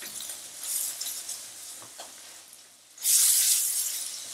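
Butter and deglazed pan juices with shallot and garlic sizzling in a glass baking dish on an electric hot plate, stirred with a wooden spatula. The sizzle surges loudly about three seconds in, then eases.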